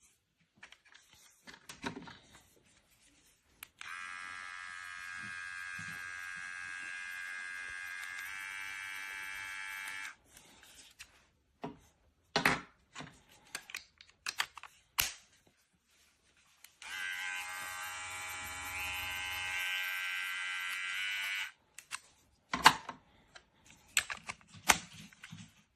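TRIMX cordless beard trimmer running twice with a steady electric whir, once for about six seconds and then, after a pause, for about five seconds. Clicks and knocks of the trimmer being handled fall between and after the runs.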